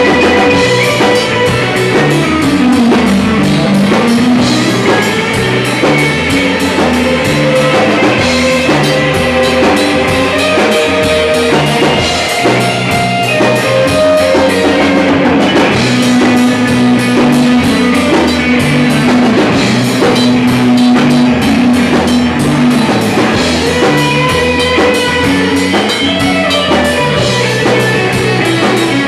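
Live band playing loud rock music, with a drum kit and guitar.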